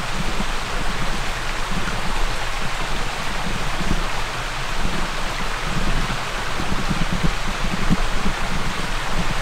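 Steady rushing outdoor noise with irregular low rumbling swells and no distinct events.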